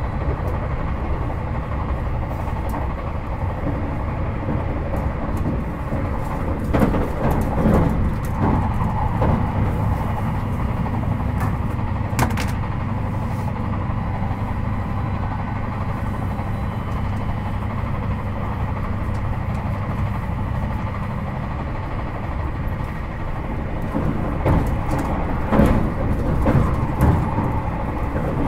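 Interior running noise of a JR Hokkaido 721 series 4000-subseries electric train (Toshiba GTO inverter) at speed between stations: a steady rumble of wheels on rail, with scattered sharp clicks and knocks from the track, more of them about a quarter of the way in and near the end.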